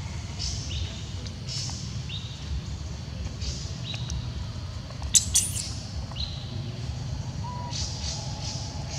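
Macaques squealing: short high-pitched squeaks come every second or so, with one sharp, loud shriek about five seconds in, over a steady low rumble.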